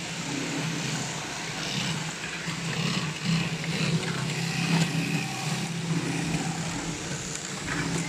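Workshop din of many industrial sewing machines running, with a steady motor hum under a busy mechanical clatter.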